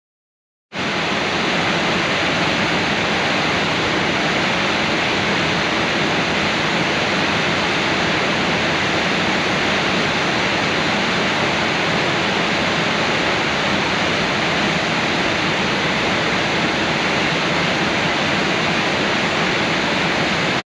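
Waterfall: a loud, steady rush of falling water that starts abruptly about a second in and cuts off sharply at the end.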